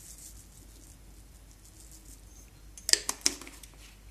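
Quiet kitchen room tone, then a quick run of three or four sharp clicks about three seconds in, from spice containers or utensils being handled at the stove.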